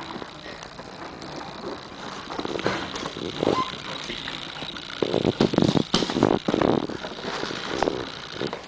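A baby's hands and body scraping and slapping against a large cardboard box as he climbs it and slides back down, with a run of louder irregular scuffs about five to seven seconds in.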